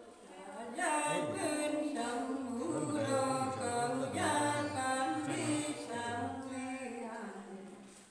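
A woman singing a Nùng folk song unaccompanied, in long drawn-out notes that slide and waver in pitch. The voice comes in about a second in and fades out near the end.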